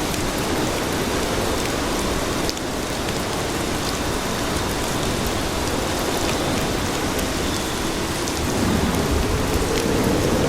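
Steady rain falling on city streets, a dense even hiss with scattered drop ticks. About eight seconds in, a deeper rushing swell builds and grows louder.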